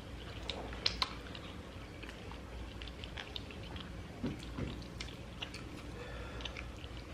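People chewing and biting pepperoni pizza close to the microphone: soft mouth sounds with scattered small clicks, two sharper clicks about a second in.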